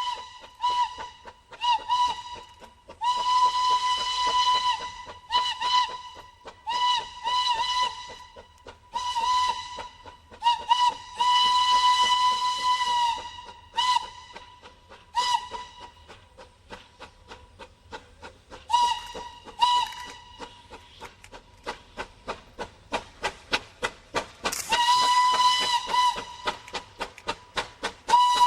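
Steam locomotive whistle sounding over and over in short toots and longer blasts, one steady pitch that sags at the start and end of each blast, with the locomotive's exhaust beats chuffing quickly between them. A long blast begins near the end.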